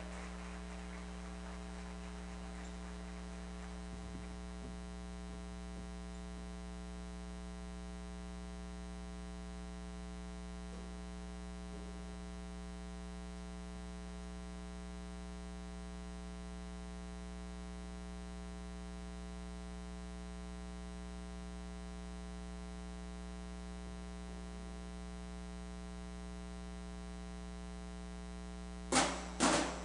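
Steady electrical mains hum with a ladder of overtones. About a second before the end, a run of sharp percussive hits starts at roughly two a second as the stomp team's beat begins.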